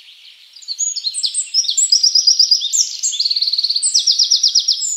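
Birdsong from several birds at once, overlapping chirps and fast trills, faint at first and louder from about a second in.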